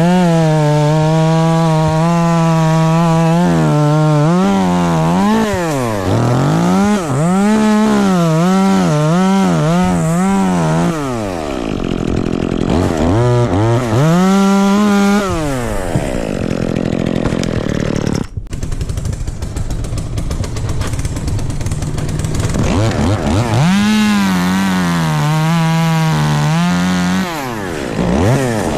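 Chainsaw running at high revs, its throttle opened and eased off again and again so the pitch keeps rising and falling, dropping back low several times before climbing high again near the end.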